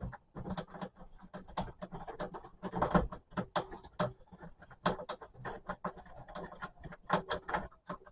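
Rubber adapter being worked onto a vacuum cleaner hose by hand: a busy run of irregular rubbing, squeaking and clicking of rubber and plastic as it is pushed and twisted into place.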